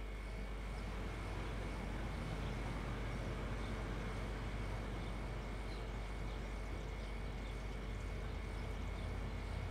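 Steady low rumble of distant city traffic, an even background hum with no distinct events.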